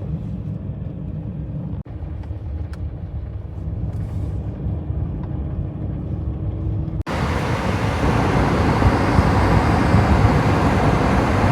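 Car driving on a snowy road, heard from inside the cabin: a steady low road-and-engine rumble, then after a cut about seven seconds in, a much louder steady rushing hiss of road noise.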